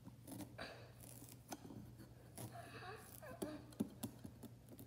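Kitchen knife cutting into a pumpkin's rind and flesh: faint, irregular scraping and small crunching clicks, over a low steady hum.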